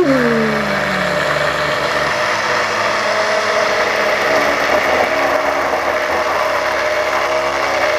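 Hand-held immersion blender running at the bottom of a tall plastic beaker, emulsifying egg yolks, mustard and sunflower oil into mayonnaise. It starts abruptly, its pitch dropping over the first second, then runs steadily.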